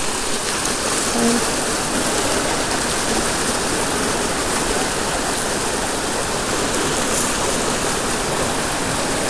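Steady rush of a fast-flowing river, an even hiss of moving water that doesn't change.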